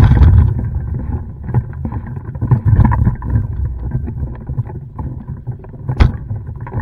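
Wind buffeting the microphone of a camera mounted on a hang glider, a heavy low rumble with scattered knocks and one sharp knock about six seconds in.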